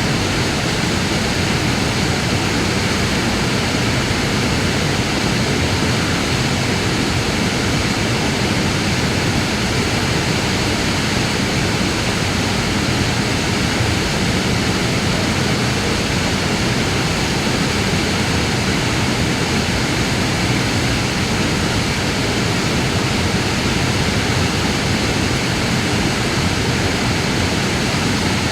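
Waterfall rushing, a steady, even roar of falling water with no breaks or changes.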